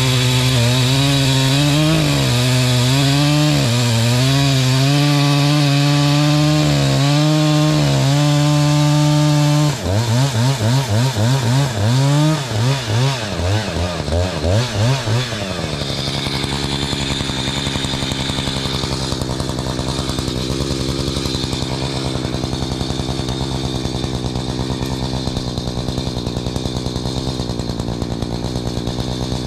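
Two-stroke chainsaw running at high revs, its pitch wavering as it cuts wood. About ten seconds in it is revved up and down in quick repeated blips for several seconds. From about sixteen seconds in it settles to a steady, lower, quieter run.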